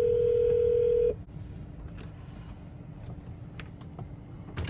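Steady single-pitch hold tone from a phone on speaker, waiting in the 911 call queue, cutting off about a second in; after it a low background hum, and a sharp click near the end.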